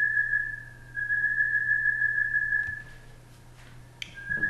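A steady, high-pitched whistle-like tone with no change in pitch, over a faint low hum. It drops out briefly near the start and again after about three seconds, then comes back near the end, just after a sharp click about four seconds in.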